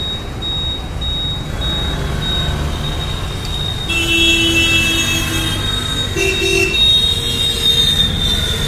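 Road traffic rumbling steadily, with a thin high whine running throughout. Vehicle horns sound over it: a long honk about four seconds in, then a shorter one around six seconds.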